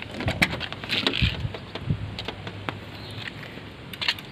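Front door of a 1992 Daihatsu Zebra van being unlatched and swung open: a series of sharp clicks and knocks with short rustling scrapes.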